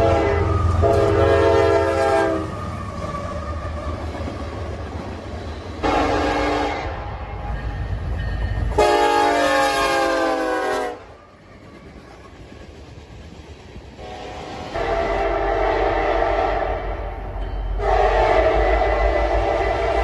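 Diesel freight locomotive's multi-chime air horn sounding a series of blasts of different lengths, some long and one short, over the low rumble of the locomotive running.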